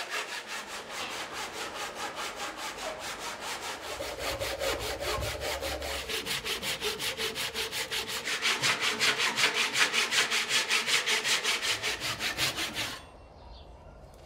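Hand saw cutting through the carved wooden head of a statue in rapid, even back-and-forth strokes. The strokes get louder about halfway through and stop about a second before the end. This is the roughing-out stage of the carving: the head is being sawn off so the eyes can be set from behind.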